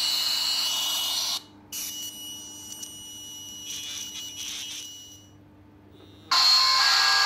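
iPhone 4 loudspeaker on a call giving out a loud, harsh buzzing hiss that cuts off about a second and a half in, followed by a few seconds of quiet handling. Near the end a ringtone blares from the same speaker, heavily distorted: the owner puts the garbled sound down to something seriously wrong with the phone's sound chip.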